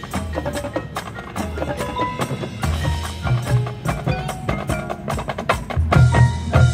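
High school marching band playing its field show: many sharp percussion hits and front-ensemble mallet percussion over a low, pulsing bass line.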